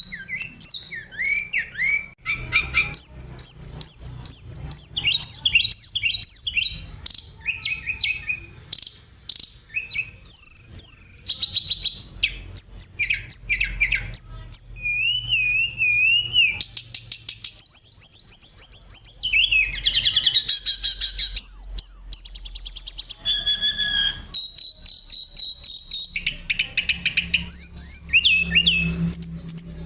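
Oriental magpie-robin (kacer) singing a continuous, varied song: clear whistles, rapid trills and sliding phrases, each phrase short and quickly followed by the next.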